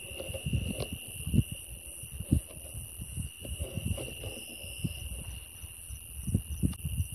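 Steady high-pitched chorus of night insects at two pitches, with low rustling and a few knocks close to the microphone.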